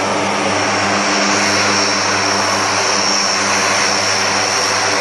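Turboprop engines of C-130J Hercules transports running: a steady propeller drone with a high turbine whine over it.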